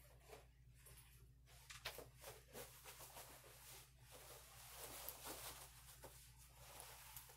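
Near silence: room tone with a steady low hum and faint scattered rustles and clicks.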